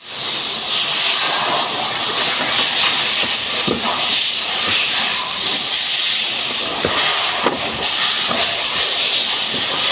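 A loud, steady hiss with a few faint knocks over it.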